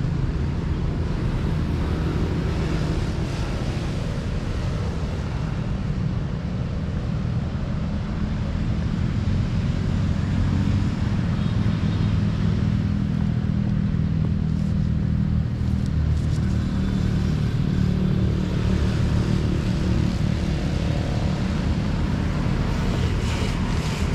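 Street traffic: motor vehicle engines, mostly motorbikes and cars, making a steady low hum that grows louder in the middle.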